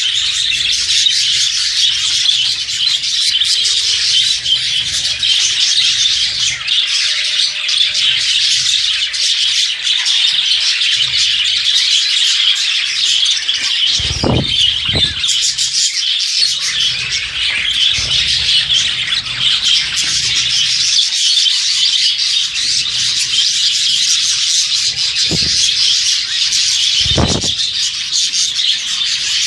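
A flock of budgerigars chirping and chattering without pause, with a couple of dull knocks about halfway through and another near the end.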